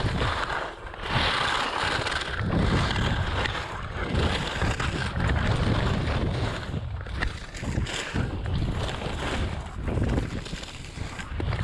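Skis sliding and carving over packed snow, the edges hissing and scraping in swells that rise and fall with the turns, with wind rushing over the microphone.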